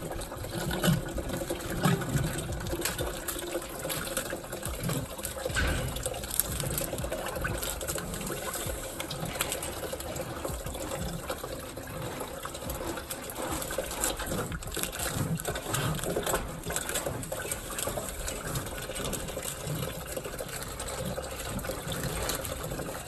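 Water running steadily into a container, with occasional knocks.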